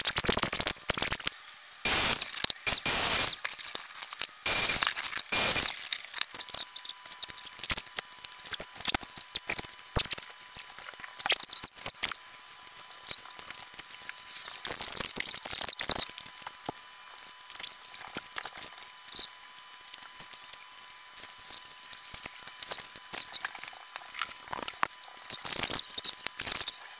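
Party decorations being handled by hand: a latex balloon squeaking and rubbing as it is tied, and plastic packaging crinkling and rustling in scattered clicks. In the first few seconds come three loud bursts of noise, each about a second long.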